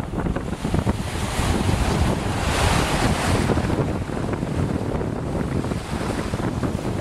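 Wind buffeting the microphone over the wash of sea waves, the surf swelling about halfway through.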